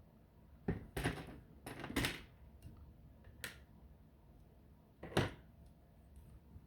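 Bionicle plastic pieces being pulled apart and set down: a handful of sharp plastic clicks and clacks, in quick pairs about one and two seconds in and once more near the end.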